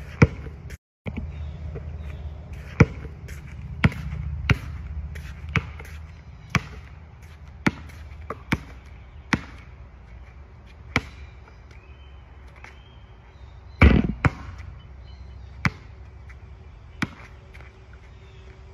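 A basketball bouncing on an outdoor court, single sharp bounces about a dozen times at irregular spacing roughly a second apart, with one louder, longer knock about three quarters of the way through.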